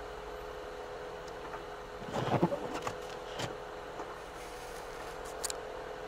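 Steady hum inside a stopped car's cabin, with a short burst of knocking and rubbing about two seconds in and a couple of sharp clicks later.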